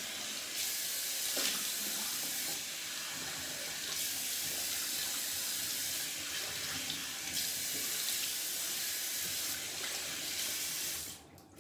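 Bathroom sink tap running steadily, the water splashing into the basin, then turned off about eleven seconds in.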